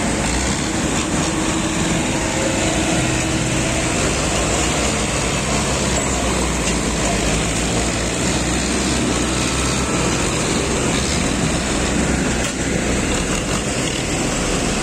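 Diesel tractor engines running hard under load, pulling a fully loaded mud trolley through canal water: a steady, deep engine drone.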